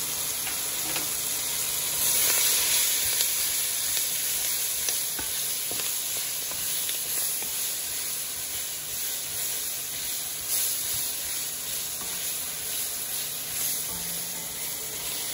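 Sliced onions and crushed garlic sizzling steadily in butter and olive oil in an enamelled Dutch oven, sautéing until aromatic. A wooden spoon stirs them, with a few faint scrapes against the pot.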